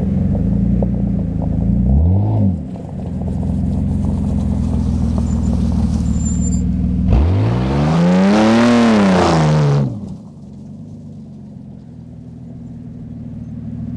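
Dodge's engine running with a deep, steady rumble, blipped briefly about two seconds in. About halfway through it revs up hard and loud, climbing and then falling in pitch over two to three seconds, and cuts off sharply, then settles into a quieter rumble that swells again near the end.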